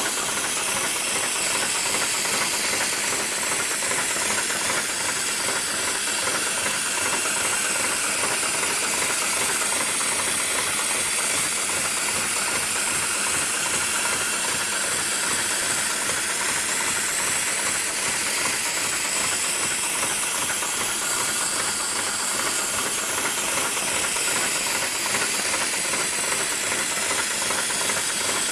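Heavy-duty programmable industrial sewing machine running steadily, a constant hiss mixed with a fast mechanical stitching clatter.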